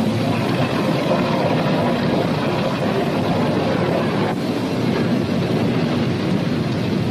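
Steady roar of a blast furnace at work, a dense noisy rumble with no distinct strokes.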